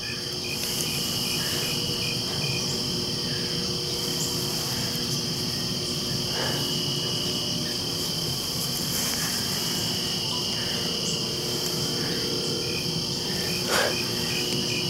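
Steady chorus of crickets and other insects: a dense high-pitched trill, with single cricket chirps repeating about three times a second.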